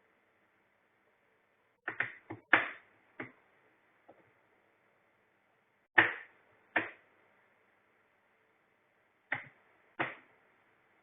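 Sharp knocks and clicks of highchair parts being handled, irregular and in small groups: a quick cluster of five about two seconds in, then pairs about six and nine seconds in, with near silence between.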